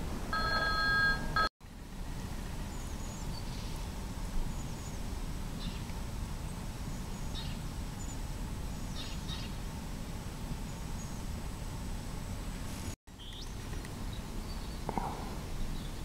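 Faint, short, high bird calls scattered over a steady outdoor background noise. A louder steady ringing tone of a few fixed pitches lasts about a second at the start, and the sound drops out abruptly twice.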